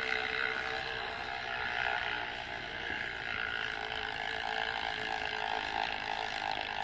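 Zipp Super 9 carbon disc rear wheel spinning freely on its freshly rebuilt 11-speed hub with new bearings, giving a steady whir that stays even throughout.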